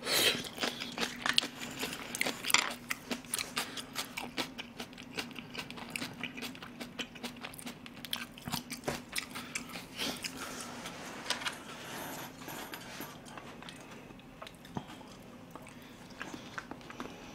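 Close-miked chewing of a mouthful of side dish: wet, crunchy mouth clicks several times a second, thinning out after about twelve seconds.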